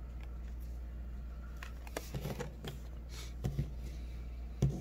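Trading cards being handled and set down on a tabletop: a few faint light taps and slides, over a steady low hum.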